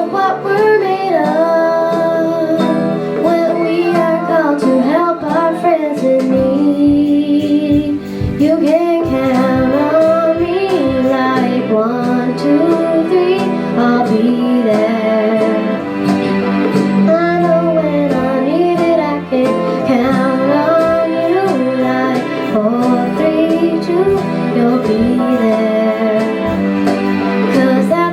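A young girl singing a pop song over a plucked guitar accompaniment.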